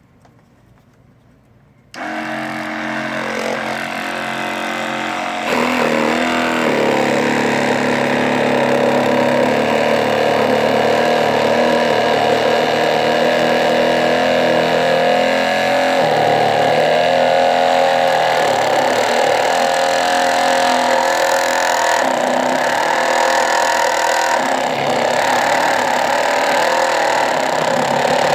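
Small electric motor of a mini hobby table saw switched on about two seconds in, running with a steady whine and getting louder a few seconds later as it cuts a piece in two.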